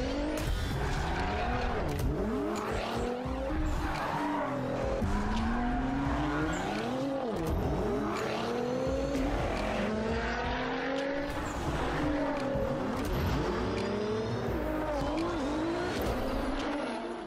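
Nissan Z's twin-turbo V6 revving hard, its pitch climbing and dropping again and again, with tyres squealing under wheelspin.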